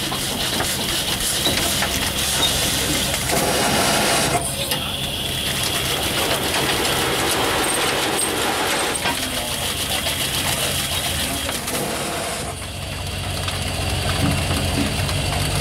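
1912 Waterous 12-ton road roller's twin-cylinder single-expansion steam engine running under steam, a continuous mechanical sound with a steady low beat that grows stronger about twelve seconds in.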